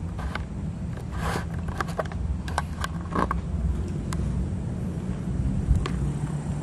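Scattered footsteps and handling knocks over a steady low rumble.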